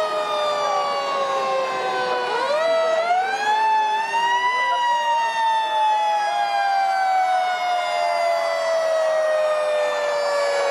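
Fire truck sirens: one siren's pitch slowly falling, and a second siren rising about two seconds in, peaking a couple of seconds later and then slowly winding down.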